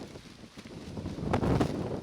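Gusty wind buffeting the microphone, with a lightweight raincoat flapping and fluttering; the gust builds about a second in.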